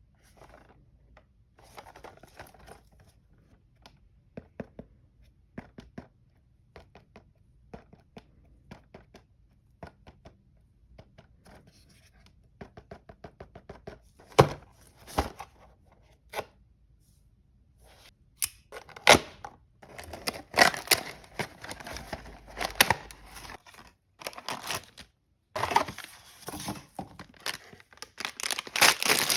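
Blind-box packaging being opened by hand: scattered clicks and taps, then louder tearing and crinkling of the wrapping in the second half, with a few sharp snaps.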